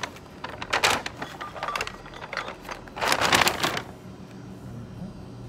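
Clicks, clatter and rustling of things handled at a shop checkout counter, with a louder rustle about three seconds in, then a low steady hum.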